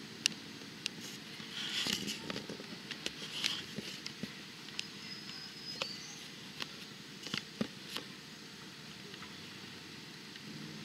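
Suzuki Samurai crawling slowly down a rutted dirt trail, its engine running low and steady, with scattered sharp cracks and crackles of the tyres rolling over dirt and rocks.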